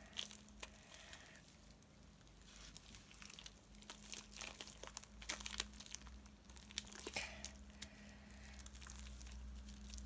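Hands kneading sticky homemade slime of school glue and laundry detergent, with faint, irregular sticky clicks and crackles as it pulls off the fingers; the slime is still a little sticky.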